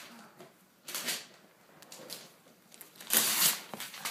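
Wrapping paper rustling and crinkling as a boxed present is unwrapped by hand, in short bursts, the loudest about three seconds in.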